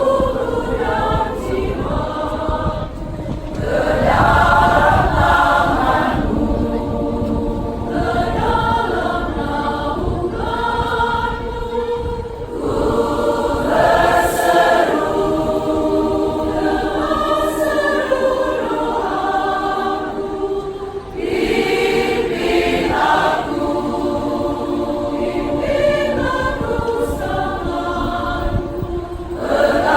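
Mixed church choir singing a hymn arrangement in sustained, several-part harmony, in phrases with short breaks between them.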